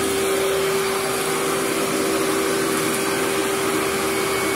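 Vacuum cleaner with a brush running steadily over carpet: an even rush of air with a steady hum over it.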